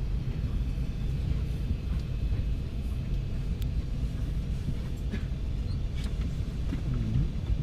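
Steady low rumble of the cabin of an Airbus A320, with a few faint clicks.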